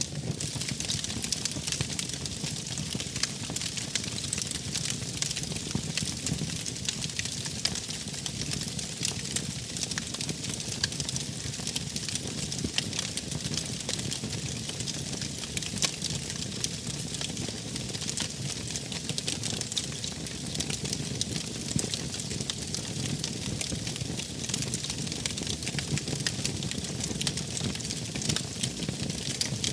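Wood fire burning: a steady low rumble and hiss with many irregular sharp crackles and pops.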